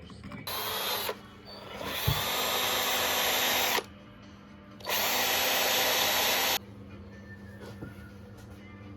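A handheld power tool running in three bursts: a short one about half a second in, a longer one of about two seconds, and a third of nearly two seconds, each starting and stopping abruptly.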